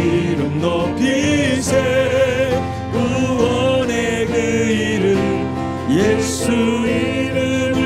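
Korean Christian praise song: a voice singing long, wavering held notes over instrumental accompaniment.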